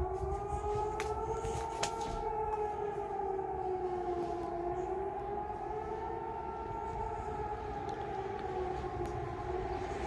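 Civil defence siren sounding during a public test alarm: a steady tone on two pitches, one low and one higher, that drifts only slightly up and down.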